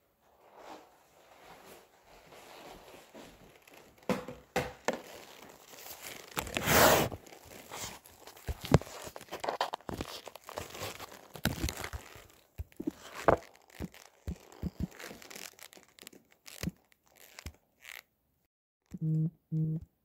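Irregular rustling and crinkling with scattered clicks, and one louder noisy burst under a second long about seven seconds in. Two short low beeps near the end.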